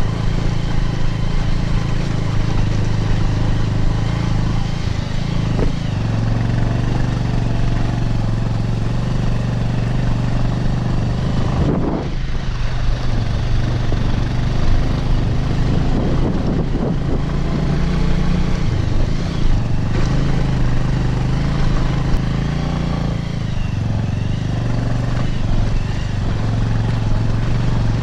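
Motorcycle engine running at a steady low note while the bike rides slowly along a muddy, snow-banked road. About twelve seconds in the sound dips briefly.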